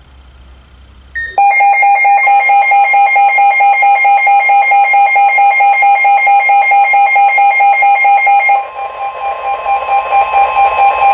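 Weather radio alert alarm for a severe thunderstorm warning: a loud, rapidly pulsing electronic beep starts suddenly about a second in, then changes about eight and a half seconds in to a steadier, slightly quieter warning tone.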